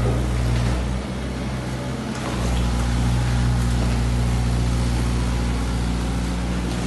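Bobcat E45 mini excavator's diesel engine running steadily as it works. The hum eases about a second in and picks up again just after two seconds, as the hydraulics take load.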